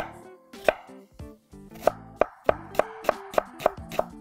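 Chef's knife chopping an onion on a wooden cutting board: sharp knocks of the blade on the board, a few spaced strokes at first, then quickening to about five a second in the second half. Soft background music plays underneath.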